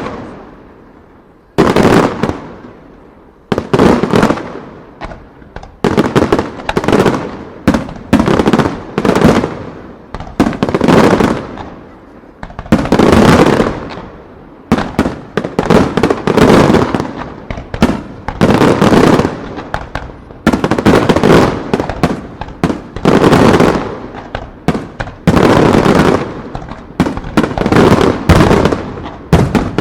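Aerial firework shells bursting in rapid, dense volleys: loud sharp bangs in quick clusters, each followed by a booming echo, with barely a pause between salvos.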